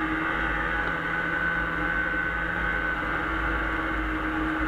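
A 1996 Arctic Cat Bearcat 340 snowmobile's Suzuki-built two-stroke engine running at a steady cruising speed, its whine holding nearly one pitch.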